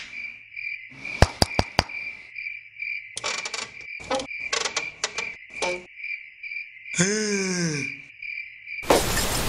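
Crickets chirping in a steady, fast-pulsing trill. A few sharp clicks come about a second in, and a short voiced sound rises and falls in pitch about seven seconds in. A loud burst of hiss starts near the end.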